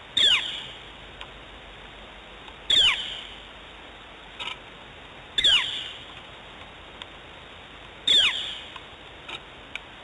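Nest camera's pan mechanism giving a short, falling squeal four times at even intervals of about two and a half seconds, over a steady hiss.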